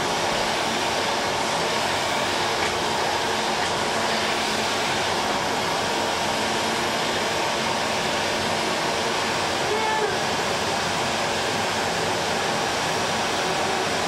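Canister vacuum cleaner running steadily while the floor is vacuumed, a constant even whoosh of the motor and air.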